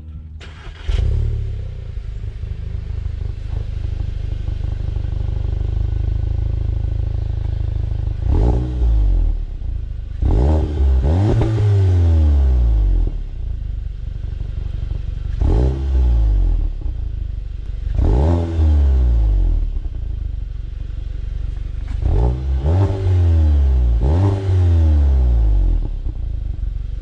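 Volkswagen Mk7 GTI's turbocharged 2.0-litre four-cylinder starting up warm about a second in, idling, then revved in a series of quick throttle blips, one held for about two seconds, on its stock exhaust. Only a little sound comes out of it.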